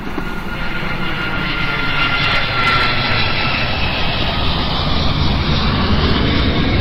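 A loud, steady jet-engine roar with a faint whine that slides slightly down in pitch over the first few seconds.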